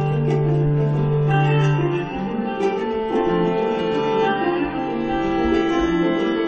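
Instrumental acoustic string music: a quick plucked banjo line over a double bass holding long low notes.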